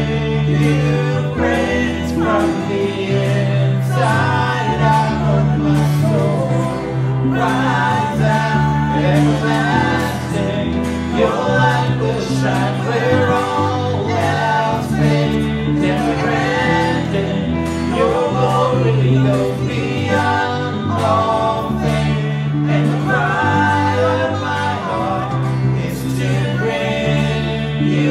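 Congregational worship song: sung vocals over instrumental accompaniment, with sustained low bass notes that change every second or two.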